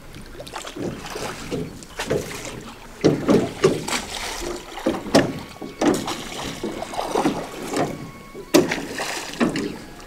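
Small rowboat being rowed: oars swishing and splashing through the water and knocking in their oarlocks, with sharp knocks about three, five and eight and a half seconds in.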